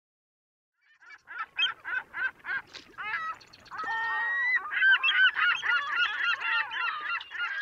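Honking bird calls: a run of separate calls about three a second, then from about four seconds in a dense chorus of many overlapping calls.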